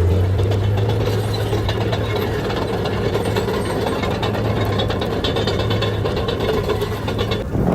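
An engine running steadily with a low hum, which cuts off near the end.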